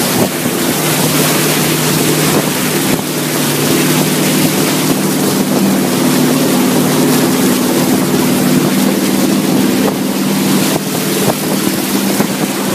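A truck's engine running steadily as it ploughs through deep floodwater, with the bow wave rushing and splashing along its side. The sound is loud and even.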